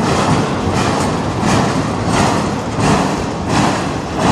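Freight train's autorack cars rolling past: steady noise of steel wheels on rail, with a regular pulse about every two-thirds of a second.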